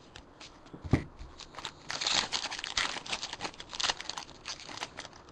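Foil wrapper of a trading-card pack crinkling and tearing as it is ripped open, with a single knock about a second in.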